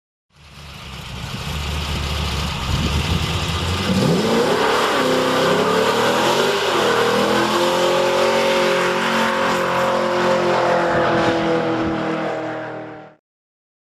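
Car engine revving up about four seconds in, then holding high revs with a steady tone before fading away.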